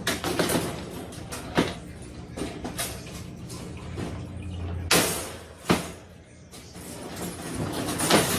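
Dog crate being put together by hand: knocks and rattles of its panels, with five or so sharp knocks, the loudest about five seconds in.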